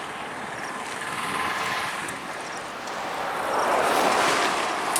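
Highway traffic: vehicles passing close by, the noise swelling as each goes past, loudest about four seconds in.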